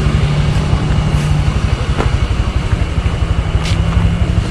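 Honda Click 125i scooter's single-cylinder engine running steadily at low speed, close to the microphone.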